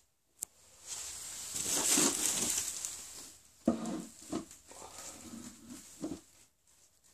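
A rustling hiss, then a sharp knock, then a domestic cat making several short pitched calls.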